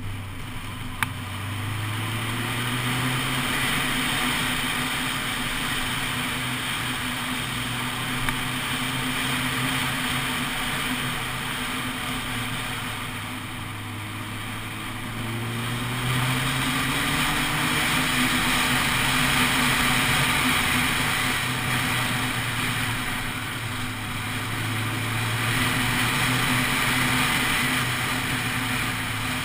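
Honda CBF600SA's inline-four engine running on the move, its pitch rising and falling several times with the throttle, under heavy wind noise on the microphone that swells and fades. A single sharp click about a second in.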